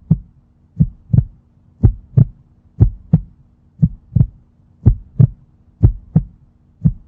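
Heartbeat sound effect: a steady lub-dub, pairs of low thumps about once a second, over a faint steady hum.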